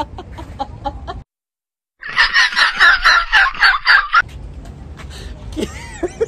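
A comedy sound clip cut in after a brief dead silence: about two seconds of loud, rapid, high cackling, like a clucking hen.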